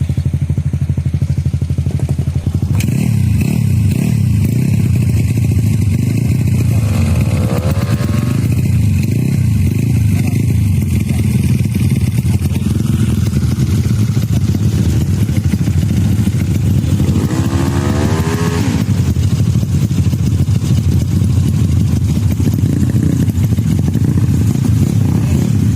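Tuned Yamaha Mio scooter engine running loud, revved up sharply twice, about seven and seventeen seconds in.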